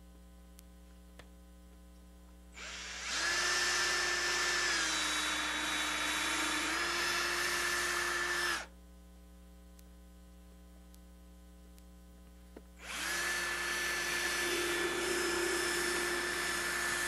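Hand-held power drill running twice, about six seconds and then about four seconds, boring a small pilot hole through painted quarter-round trim so the finish nails won't split the short piece. During the first run the motor's whine steps down in pitch and then back up.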